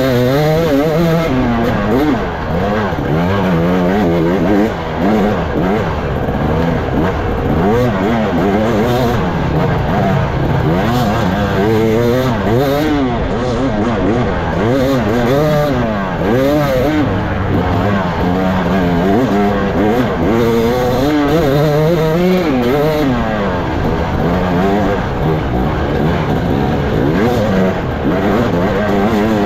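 Off-road dirt bike engine heard from on board, its revs rising and falling over and over as the throttle is worked through turns and gear changes.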